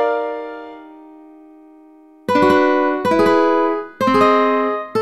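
A piano chord rings and dies away, then about two seconds in three ukulele chords are strummed, roughly a second apart, each ringing briefly: a chord app sounding out the chords.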